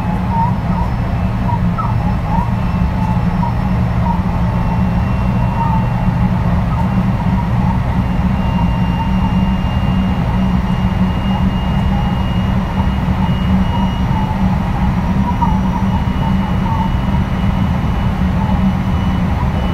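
Onboard running noise of a JR West 223 series 2000-subseries electric train travelling at steady speed: a continuous low rumble of wheels on rail, with a thin steady high whine and scattered faint squeaks.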